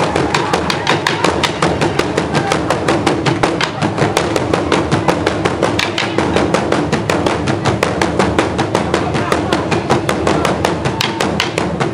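Burundian ingoma drums, tall wooden drums with hide heads, beaten with wooden sticks by a group of drummers: a fast, steady, driving rhythm of sharp strikes.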